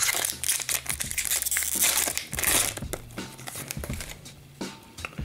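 A foil hockey card pack wrapper crinkled and torn open by hand, the crackling loudest over the first three seconds, then softer rustling of wrapper and cards.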